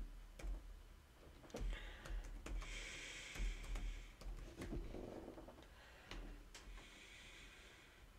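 Faint scattered keyboard clicks from typing, with breathing close to the microphone and a low steady electrical hum.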